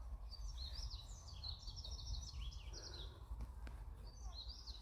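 Small birds singing, quick high chirping phrases repeated over and over, with a steady low rumble underneath.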